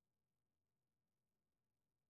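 Near silence: the soundtrack is essentially empty.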